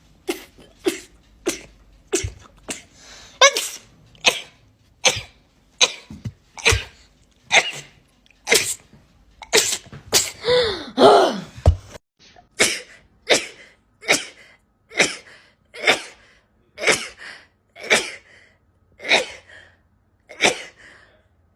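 A long run of rapid-fire human sneezes, short and sharp, coming about one every three-quarters of a second. A longer sneeze with a falling pitch comes near the middle.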